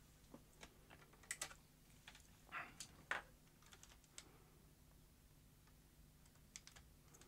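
Faint, scattered clicks and light knocks as the opened Sony CCD-TR202E camcorder, a plastic body with its metal tape mechanism exposed, is handled and picked up.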